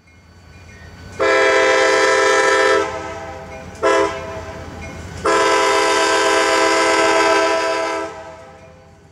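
Locomotive air horn sounding three blasts: long, short, long. Each blast is a chord of several steady tones and fades briefly after it cuts off.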